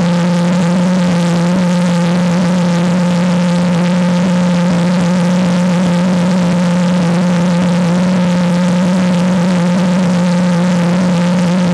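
Propane-fuelled Gluhareff G8-2 pressure jet engine running steadily: a loud, even roar with a strong constant low tone through it.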